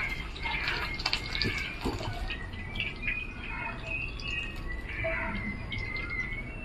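Small birds chirping repeatedly in short calls, over a steady background hiss, with a few light clicks in the first two seconds.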